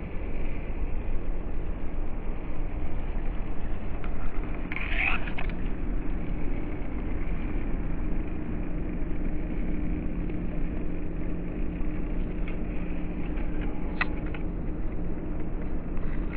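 Small RC crawler truck (WPL C24 Toyota Hilux) whirring steadily from its small brushed electric motor and gearbox as it crawls through grass, over a low rumble. A short, sharper higher sound comes about five seconds in and a small click near the end.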